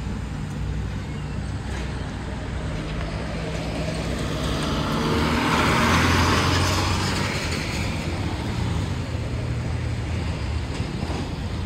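A light truck drives past close by, its engine and tyre noise swelling to a peak about halfway through and then fading away, over a steady low engine hum.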